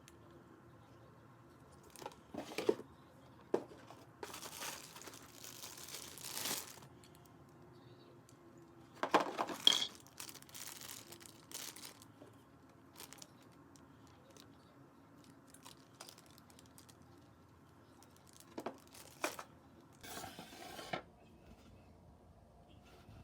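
Intermittent crinkling and rustling in several separate bursts of a second or two, with a few sharp clicks between them.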